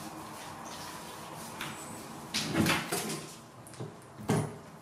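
Water splashing and dripping as a wet kitten's fur is washed by hand beside a plastic basin, with two louder splashing knocks, one about two and a half seconds in and a sharper one a little after four seconds.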